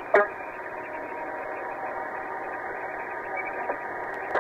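Police radio heard through a patrol car's dash-cam microphone: a steady, muffled static hiss with faint, indistinct radio chatter. A short loud burst comes just after the start and another at the very end.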